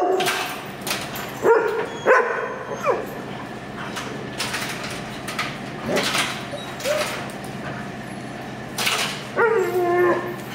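German shepherds barking and yipping in short playful bursts, in three clusters: early, about the middle, and near the end.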